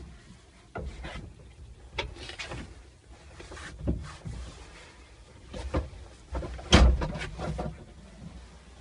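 Handling noise inside a mini excavator cab: a series of knocks, bumps and rubbing against the cab's plastic panels and fittings, the loudest knock about seven seconds in.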